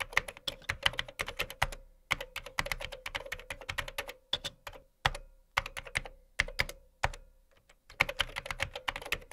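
Computer keyboard typing sound effect: rapid key clicks in runs of a second or two, with short pauses between runs.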